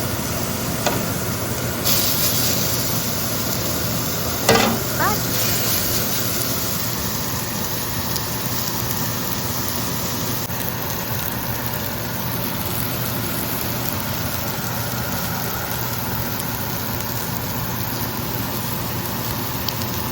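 Burger patties sizzling in a hot pan over a steady low hum, with the sizzle brightening about two seconds in. A sharp knock of utensil or pan comes about four and a half seconds in.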